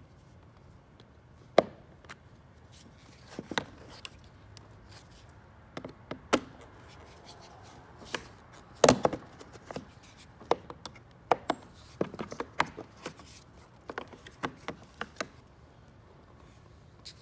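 Scattered sharp plastic clicks and knocks as a flathead screwdriver pries at and pops loose the clips of a fog light cover on a 2010 Toyota Camry plastic front bumper cover. The loudest knocks come about nine seconds in.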